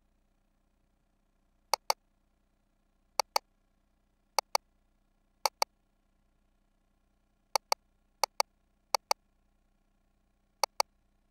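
A pointer button clicked eight times, each click a sharp press and release heard as a quick double tick, as entries are selected on the ultrasound report screen.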